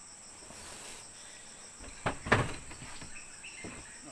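Crickets chirring steadily in a high, even trill, with two or three sharp knocks a little over two seconds in.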